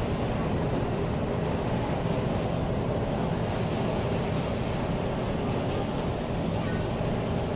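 Taiwan Railways EMU500 electric commuter train running along the tracks away from the station, a steady, even wheel and running noise.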